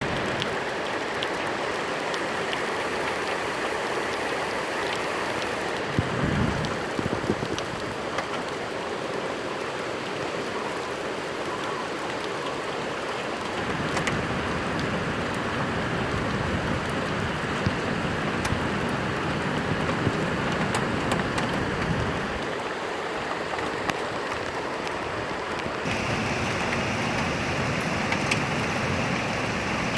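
Very heavy rain falling and hitting surfaces as a steady, continuous hiss.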